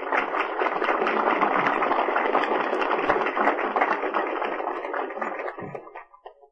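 Audience applauding, a dense run of many hand claps that fades out near the end.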